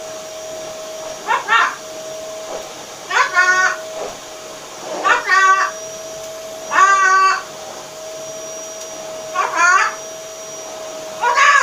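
Green-winged macaw making short, pitched calls again and again, about one every second or two, over a steady hum.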